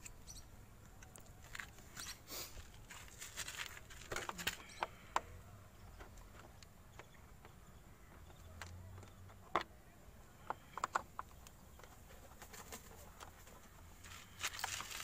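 Scattered small clicks and scrapes of hands and a screwdriver working loose the screws of a Bajaj Platina's plastic air filter box cover. There is a cluster of sharp clicks about four to five seconds in and another around ten to eleven seconds.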